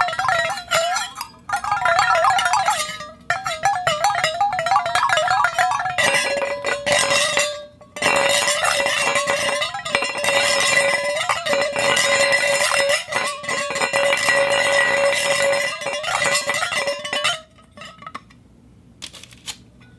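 A ball rolling around inside a dog food bowl, setting the bowl ringing with rattling clicks. At first the ring wavers in pitch; after two short breaks it holds one steady lower tone, then stops abruptly about three-quarters of the way through, leaving a few scattered clinks.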